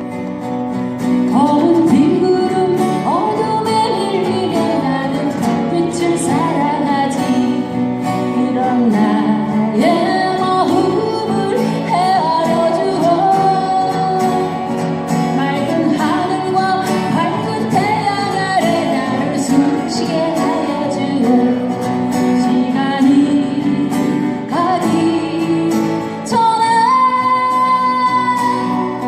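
Folk song played on strummed acoustic guitar, with a wavering melody line sliding between notes above the chords.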